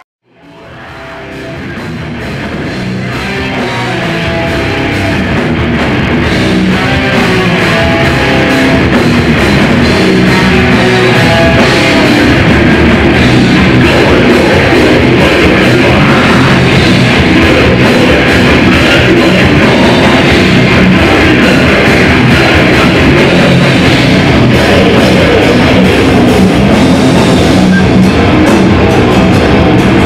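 Live metal band playing, with electric guitars and drums. The music fades in from silence over the first few seconds, then runs loud and steady.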